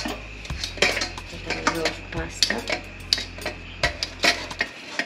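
A metal spoon clinks and scrapes against a pot of boiled fusilli pasta, and kitchenware knocks together as a metal cake pan is handled: many sharp, irregular clinks and knocks.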